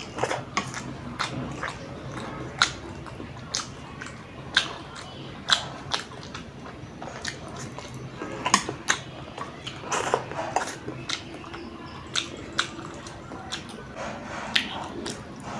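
Close-miked mouth sounds of a man eating instant noodles: slurping strands in and chewing, with sharp wet smacks and clicks at irregular intervals, roughly one a second.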